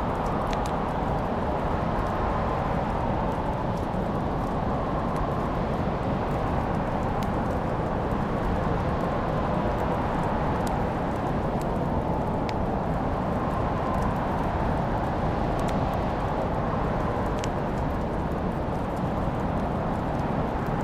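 Wood fire burning in a fireplace: a steady low rushing sound with scattered sharp crackles and pops at irregular intervals.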